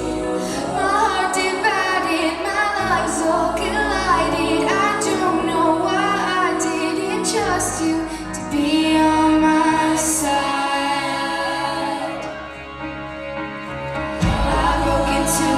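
A group of young singers singing a pop song in unison over a backing track with a bass line. The track thins out and dips in level near the end, then the bass comes back in strongly.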